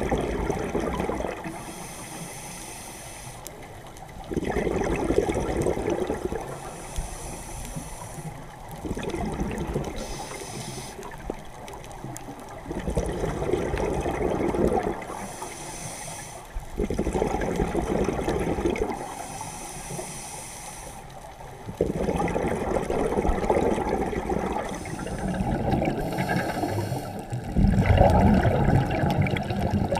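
Scuba diver breathing through a regulator: bursts of bubbling exhaled air about every four to five seconds, alternating with the quieter hiss of each inhalation.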